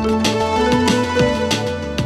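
Instrumental background music: sustained melodic notes over regular percussive hits.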